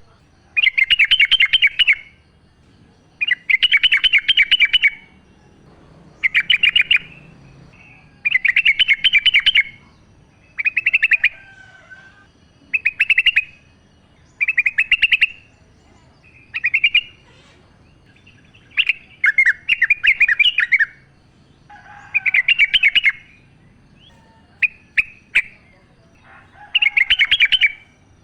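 Yellow-vented bulbul singing: a string of quick chattering phrases, each one to two seconds long, repeated every couple of seconds.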